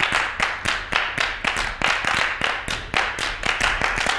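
A group clapping hands together in a steady rhythm, about two strong claps a second with lighter ones between, stopping suddenly at the end.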